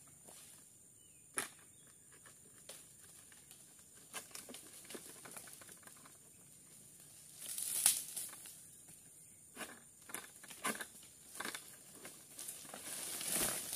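Scattered rustles, cracks and scrapes of a long-handled oil palm harvesting sickle (egrek) cutting into the fronds at the crown of a tall oil palm, with a louder rustle about eight seconds in and more clustered near the end.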